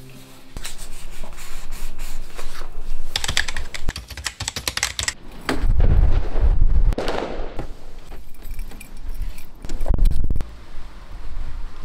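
A run of small sharp clicks and rattles, with heavy low thumps about six and ten seconds in.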